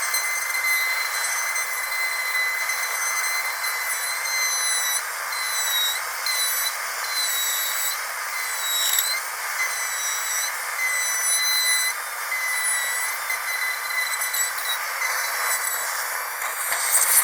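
High-speed dental drill whining steadily at a high pitch over a hiss. Its pitch dips briefly several times, most deeply about nine seconds in, and a louder rush comes near the end.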